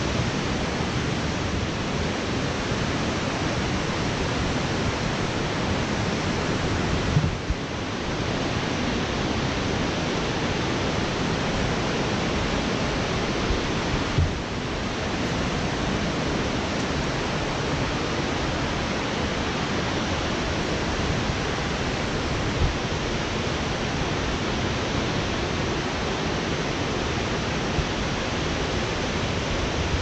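Rushing water of a nearby waterfall and its cascading river: a steady, even noise with no break, with a few light knocks.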